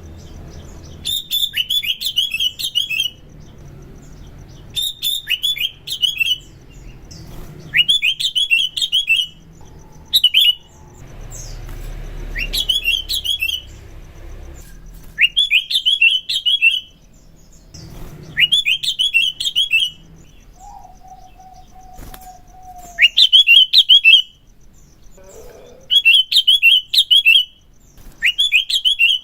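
Sooty-headed bulbul (kutilang) singing: short, quick phrases of sliding, downward-sweeping notes, repeated about every two to three seconds.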